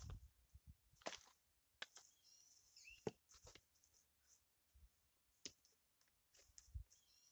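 Small hand trowel scooping and scraping potting soil in a plastic planter: a string of soft, irregular scrapes and taps, faint overall.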